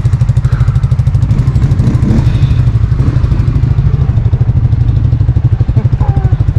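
Quad ATV engine running at a steady idle, a fast, even low chugging.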